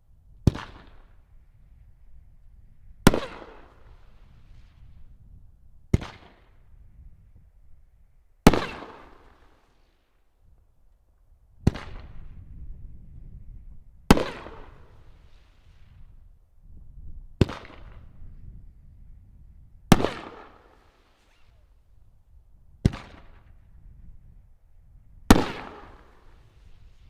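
Aerial firework shells going off one after another, about ten sharp bangs roughly every two and a half to three seconds, each trailing off in an echoing rumble.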